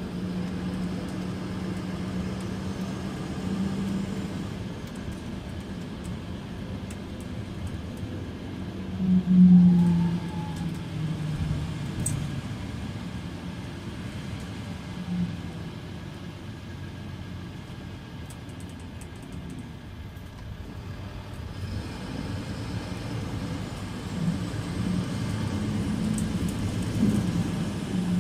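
Mercedes-Benz Citaro C2 LE Ü bus standing with its OM 936 hLA six-cylinder turbo diesel idling: a steady, rough, rattly-sounding rumble. A brief louder surge comes about nine seconds in.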